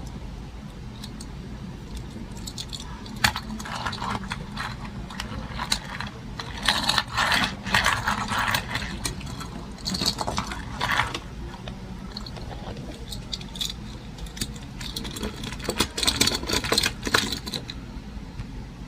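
Hot Wheels packaging being handled and opened: bursts of crinkling, scraping plastic and card with small sharp clicks, in three spells.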